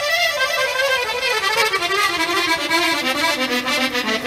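Elkavox button accordion playing a pasodoble: a long run of quick notes stepping down in pitch, settling onto a lower note near the end.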